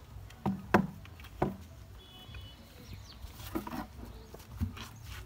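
A few sharp knocks and taps, the two loudest within the first second and a half and softer ones later, over a low steady hum.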